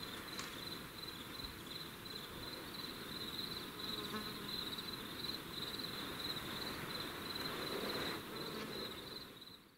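An insect trilling steadily at a high pitch over faint forest background hiss, fading out near the end.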